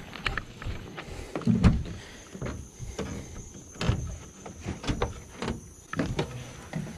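Fishing gear and a plastic cooler being handled: scattered clicks and knocks, with heavier thumps about one and a half and four seconds in.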